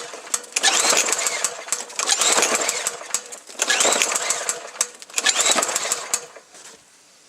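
Honda-clone lawn mower engine being pull-started four times in a row, each recoil pull cranking it with a rising whir that dies away without the engine catching. The owner puts it down to a carburettor problem, suspecting a stuck float.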